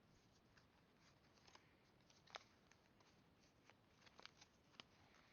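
Faint, scattered crinkles and clicks of a Pokémon booster pack and its cards being handled, over near silence; the sharpest clicks come about two and a half and five seconds in.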